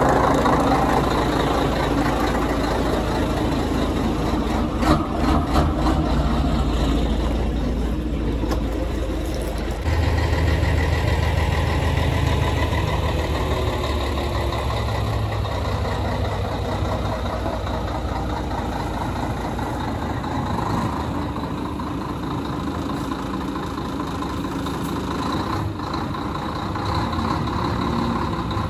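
Scania 113 truck's 360 hp inline-six diesel running steadily at low revs, near idle.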